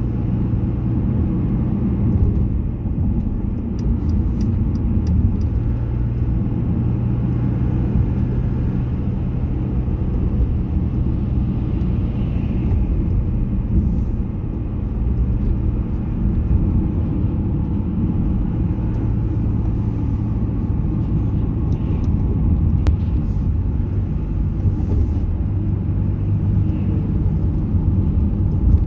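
Car being driven on city roads: a steady low rumble of engine and tyres with a constant hum, and a few faint clicks.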